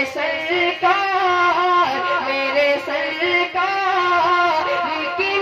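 A man's voice singing a naat into a microphone, drawing out long held, wavering notes with no clear words.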